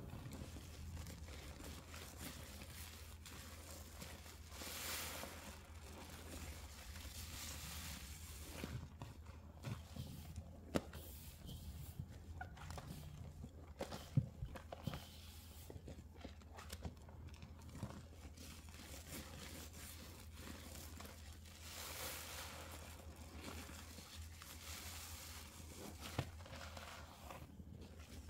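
Sponge soaked with dish soap and shaving cream being squeezed by hand: wet squelching and crackling of lather with a few sharper pops, over a steady low hum.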